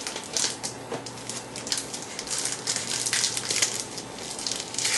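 Crinkling and rustling of a trading-card pack's wrapper being pulled open and handled, in quick irregular crackles that grow busier in the second half.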